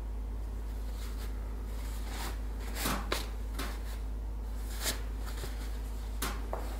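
A fabric snapback cap being handled: a handful of short rustles and light taps, the strongest about three and five seconds in, over a steady low hum.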